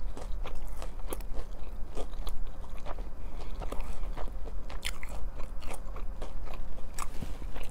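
A person chewing a bite of breaded fried chicken finger close to the microphone: irregular sharp mouth clicks and crunches, a few a second.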